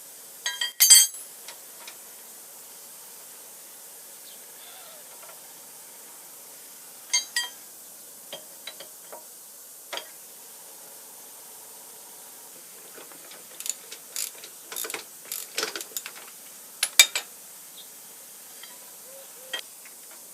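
Hand tools and steel machine parts of an old Rockford shaper clinking and knocking during disassembly: scattered sharp metallic knocks with a brief ring, a loud cluster about a second in and a busy run of clinks in the second half.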